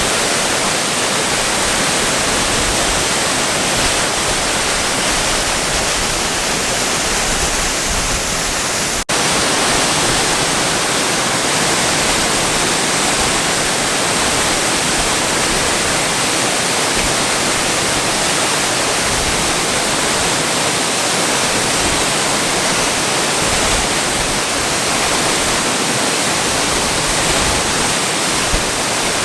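Waterfall: water pouring down in a steady, even rush, with a momentary break about nine seconds in.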